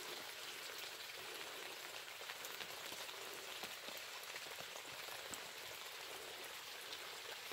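Light rain pattering: a faint, steady hiss with many small scattered ticks.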